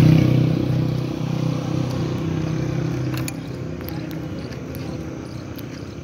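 Motorcycle engine running with a steady low hum that fades away over the first three seconds or so. A sharp click comes about three seconds in, then only faint ticks.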